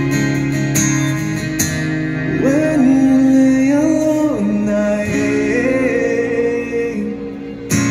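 A man singing to his own strummed acoustic guitar. The guitar chords carry the first couple of seconds, then long held sung notes come in over them.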